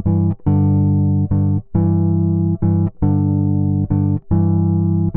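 Electric bass guitar playing a repeated blues riff of two-note chords plucked with the fingers: G on the A string held under D on the D string, alternating with E on top. The chords ring long with short breaks between them in a steady, even rhythm.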